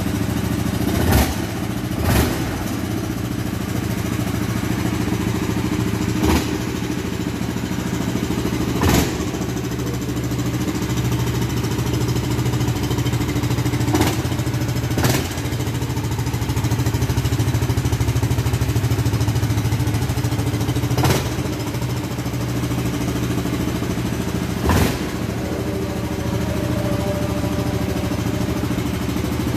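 Yamaha 700cc automatic 4x4 ATV's single-cylinder four-stroke engine idling steadily, with about eight brief sharp bursts over its running.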